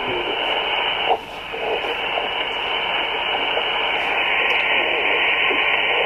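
Icom IC-705 transceiver's speaker giving 40-metre band noise in lower sideband: a steady radio hiss with faint, garbled sideband voices under it. A short click about a second in, after which the hiss drops briefly and builds back up.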